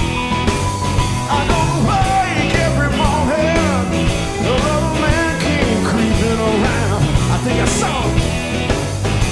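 Live blues-rock band playing, with a lead electric guitar bending and shaking notes over bass and drums.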